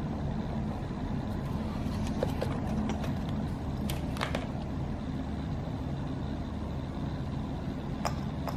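A steady low hum, with a few light clicks and taps from a cat pawing at a folded paper model on a wooden floor: a pair about two seconds in, a stronger pair around four seconds in, and two more near the end.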